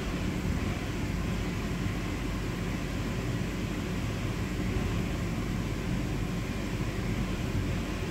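Electric bounce house blower running steadily: a constant rushing noise with a low rumble underneath.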